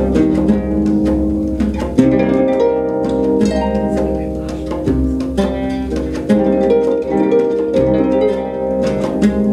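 Live instrumental trio of harp, oud and hand drum: plucked harp and oud notes ringing over a running pattern of hand-drum strokes.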